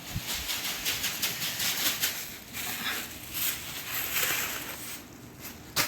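Irregular rustling and crackling as cut flowers and stems are handled, with one sharp click just before the end.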